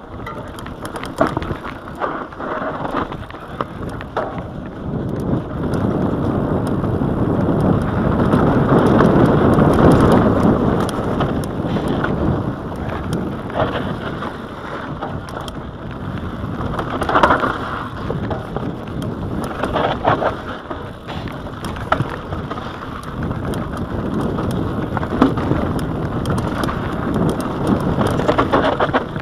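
Mountain bike riding fast down a dirt singletrack: tyres rumbling over dirt and stones, the bike rattling with sharp knocks over bumps, and wind rushing on the microphone, loudest about a third of the way through.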